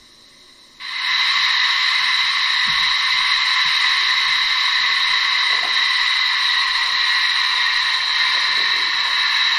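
Loud, steady steam hiss from the ESU LokSound 5 sound decoder of a Gauge 1 Bavarian D XII (class 73) model steam locomotive. It switches on suddenly about a second in as the model sets off.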